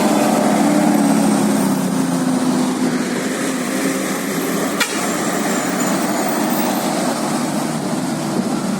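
Bus engine and road noise running steadily, with a single sharp click about five seconds in.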